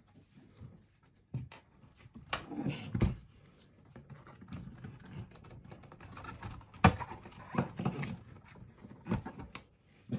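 Handling noises as a 12 V sealed lead-acid battery is pulled out of a plastic UPS battery cartridge: irregular scrapes and knocks, with a sharp click about seven seconds in.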